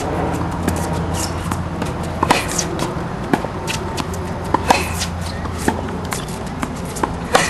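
Tennis balls knocked with a racket and bouncing on a hard court during backhand practice, a few sharp knocks a second apart at irregular spacing, with shoes scuffing on the court, over a steady low hum.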